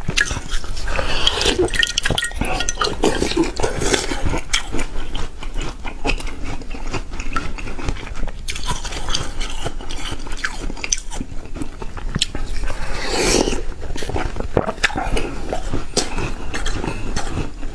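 A person biting into and chewing a slab of frozen green slush ice: steady crunching made up of many quick, sharp cracks, with a louder burst of crunching about three seconds in and again around thirteen seconds in.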